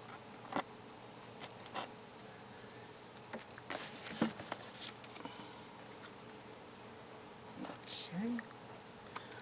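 Steady high-pitched chorus of insects, with a few brief rustles and taps as paper inserts and a cardboard box are handled.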